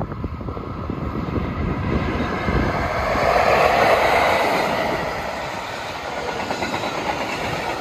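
DB class 140 electric locomotive passing close by with a freight train of empty flat wagons. It is loudest as the locomotive goes past, about three to four seconds in. The wheels clatter over the rails as the wagons follow.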